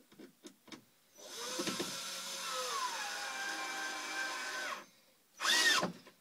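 Cordless drill driving a wood screw into a birdhouse kit, running for about three and a half seconds. Its whine drops in pitch partway through. A short, louder burst comes near the end.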